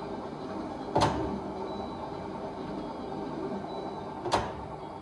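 Two sharp clacks about three seconds apart over a steady machine hum.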